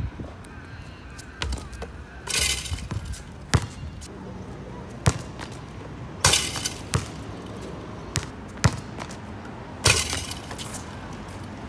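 Three loud rattling clangs from the outdoor basketball hoop's metal rim and backboard as dunks are thrown down, each lasting about half a second. Single sharp thuds of the basketball bouncing on the hard court fall in between.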